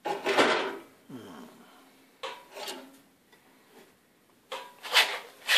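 Steel being scraped and rubbed as the freshly cut flat bar is handled on a metal-cutting bandsaw's vise and bed. The sound comes in four short bursts with pauses between them, the loudest near the end.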